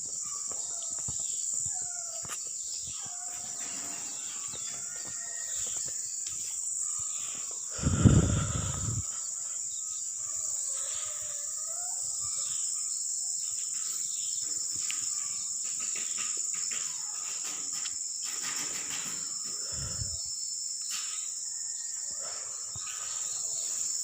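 A steady, high-pitched insect chorus runs throughout. A dull low thump about eight seconds in is the loudest moment, with a smaller one near twenty seconds.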